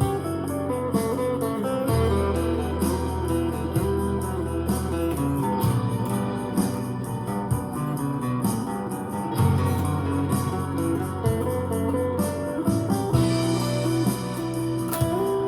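Guitar playing a blues, quick picked notes over held low notes.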